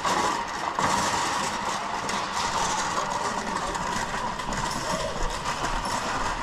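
Wire-mesh roll cage trolley rattling steadily as it is pushed over rough asphalt, its metal frame and small wheels clattering.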